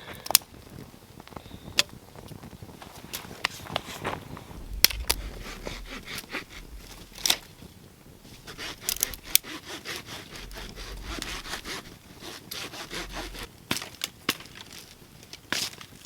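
Dry juniper wood being worked by hand: irregular sharp cracks and snaps with stretches of scraping and rubbing.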